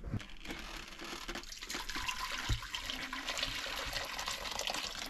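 Duck soup with rice and meat being poured from a large enamel pot into a stainless steel pot, a steady pour of liquid starting about half a second in, with one dull knock partway through.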